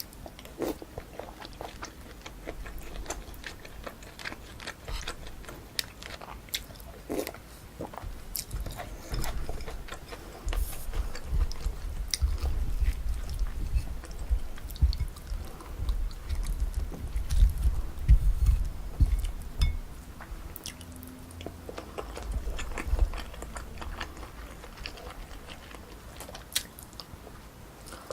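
Close-miked eating sounds: a person chewing and biting mouthfuls of pork kimchi stew and rice, with many small wet mouth clicks. The chewing grows denser and heavier for several seconds in the middle.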